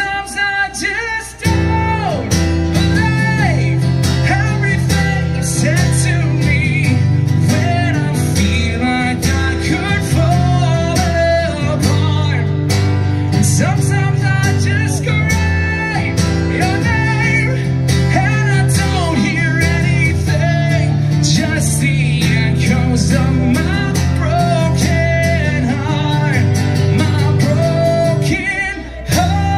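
Live amplified acoustic guitar strummed with a man singing through a PA system, the level dipping briefly about a second in and again near the end.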